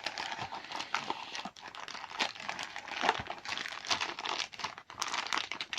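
Packaging crinkling and rustling as hands unpack a new ball joint, an irregular run of crackles.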